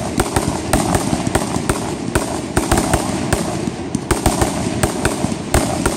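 Fireworks display going off in a rapid barrage: sharp bangs at irregular spacing, several a second, over a continuous hiss.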